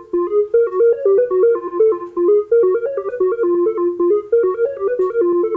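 A 16-step sequence from the Little MIDI Machine app playing an electronic keyboard sound: short, even notes hop between a few pitches in a looping pattern. The pattern speeds up as the sequencer's tempo is raised from about 110 to 136 BPM.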